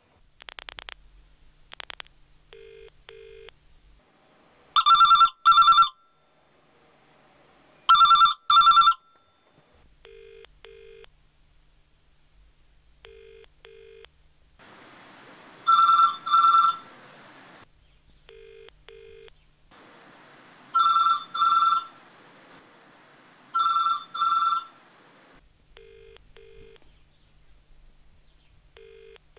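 A British telephone ringing unanswered with its double 'brr-brr' ring, five loud double rings spaced a few seconds apart. Between them comes the quieter, lower double-beep ringback tone heard down the line in the caller's earpiece.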